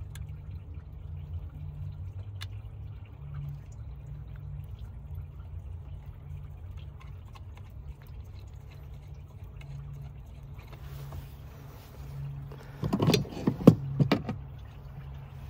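A steady low rumble, then a short cluster of sharp metallic clanks from hand tools against metal in a car's engine bay, about 13 seconds in.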